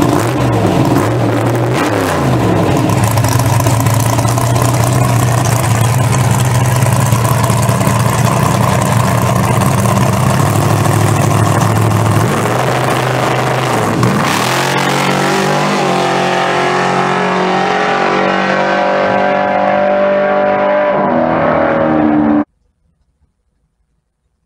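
Drag-racing pickup truck's engine doing a burnout on the wet pavement: it revs, then is held at steady high revs with tyre hiss for about ten seconds. About fourteen seconds in, the revs drop and then slowly climb as the truck rolls forward. The sound cuts off suddenly near the end.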